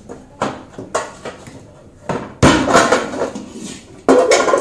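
A brass idli pot being handled and its lid lifted off: light metal clicks in the first second, a loud clanking clatter of metal on metal about two and a half seconds in, and another clank near the end.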